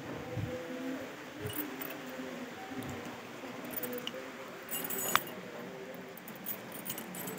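Metal clinking and jingling as a wooden door's handle and latch are worked, with one sharp click about five seconds in, over the steady hiss of light rain.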